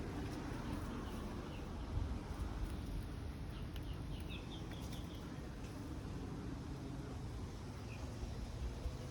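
A steady low outdoor rumble, with a quick run of faint, high, short bird chirps about three to four seconds in.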